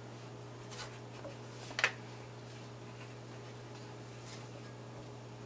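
Soft rubbing and scraping of eggplant slices being pressed and turned in flour in a plastic container, with a few light clicks and one sharper click about two seconds in, over a steady low hum.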